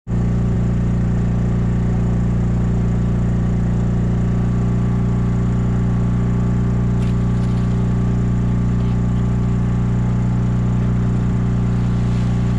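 A small engine running steadily at one constant speed, a low drone that stays the same throughout, aboard a bowfishing boat.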